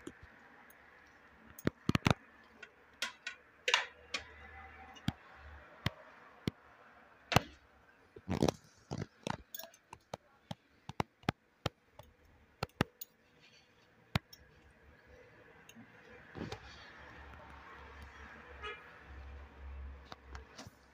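Metal fork and spoon clicking and scraping against a frying pan as fried eggplants are split open, in irregular sharp clinks.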